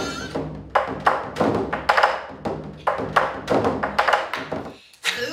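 Large Korean barrel drum (buk) of the seungmu monk's dance beaten with sticks: a run of about a dozen sharp, uneven strokes that stops shortly before the end.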